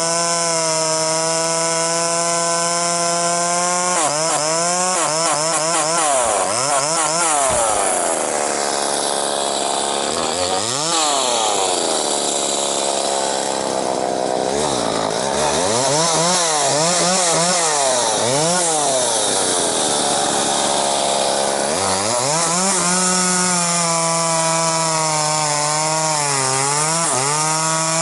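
Two-stroke chainsaw running at high speed. A few seconds in it revs up and down in quick swings, then its pitch sags and recovers again and again as the chain cuts into elm wood, before it settles back to a steady high speed near the end.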